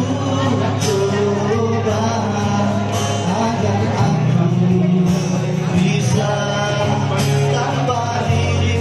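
A pop ballad playing with a steady beat, its melody carried by instruments and singing.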